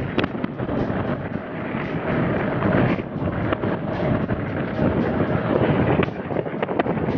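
Wind rushing and buffeting over the microphone of a moving motorcycle, with road and engine noise underneath.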